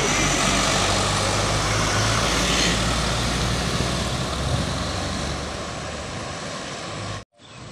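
A heavy vehicle driving past close by: low engine rumble with road noise, loudest at first and fading over several seconds, then cutting off suddenly near the end.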